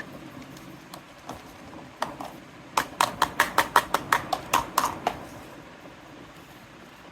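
Light tapping of small hard toy pieces: a few scattered taps, then a quick even run of about a dozen sharp clicks, roughly five a second, for about two seconds.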